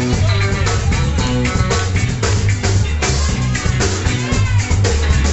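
Live rock band playing an instrumental passage: electric guitars, bass guitar and drum kit, with a loud bass line and steady drum hits.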